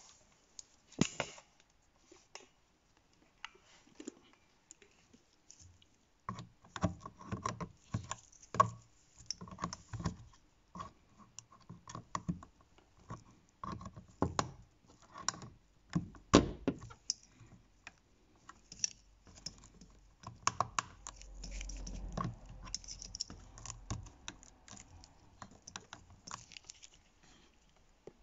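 Irregular plastic clicks, taps and scrapes of a small screwdriver and fingers working at the wiring connector and its locking tab on a VW Passat B6 window motor's control module. Sparse at first, then dense from about six seconds in, with a short low rumble past the middle.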